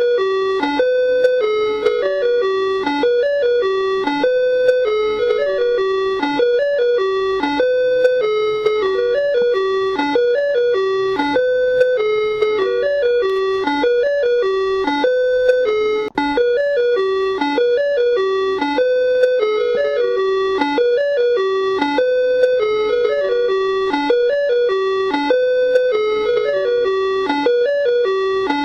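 Ice cream truck jingle: a short electronic chime melody played over and over in a loop, with a brief break about sixteen seconds in.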